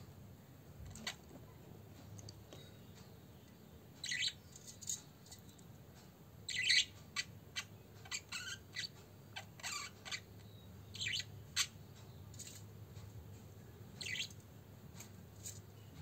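Budgerigar chirping: short, high calls, some single and some in quick clusters, the loudest about six to seven seconds in.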